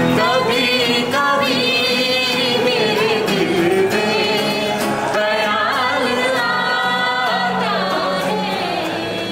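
A group of men and women singing a song together to a strummed acoustic guitar.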